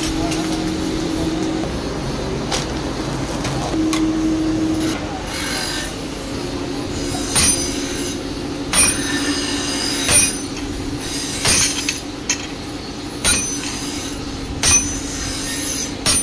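Hammer blows on a handled chisel or set tool held against a red-hot steel bar on an anvil while a bolo blade is forged. From about seven seconds in there are seven ringing metal strikes, roughly one every second and a half, over a steady hum.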